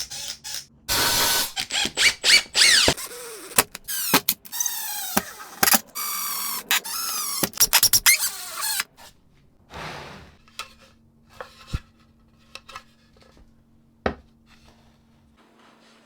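Power tool running in short bursts whose pitch rises and falls, over about the first nine seconds. After that come scattered light clicks and knocks of tool handling.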